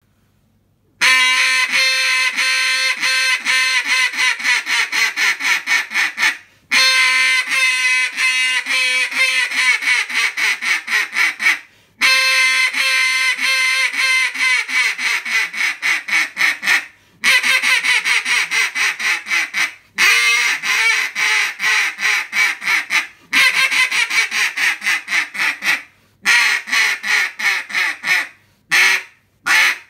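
Mouth-blown duck call sounding long runs of rapid quacks, several a second, each run broken by a short pause for breath every three to five seconds.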